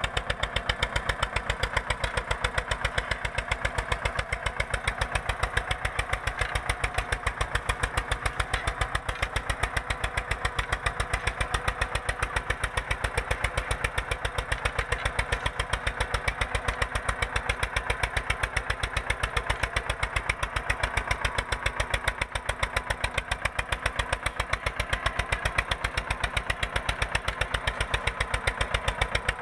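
Eicher 242 tractor's diesel engine running steadily under load while pulling a 16-disc harrow through the soil, with a rapid, even beat of exhaust pulses.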